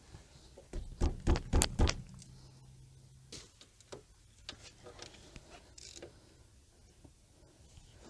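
Metal tools knocking against a car's front brake assembly: about five sharp clunks in quick succession about a second in, then light clicks and taps while the caliper bracket is being unbolted.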